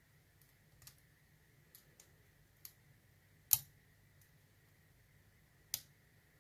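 Scattered light clicks of a tool working at the circlip on a Chubb padlock core, the loudest about three and a half seconds in and another near the end.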